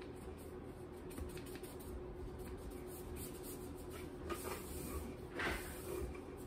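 Plastic fondant smoother rubbing and scraping softly against the fondant covering the side of a cake, with small ticks and a louder scrape about five and a half seconds in, over a faint steady hum.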